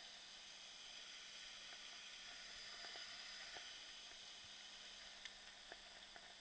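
Faint steady hiss with a few soft clicks near the end.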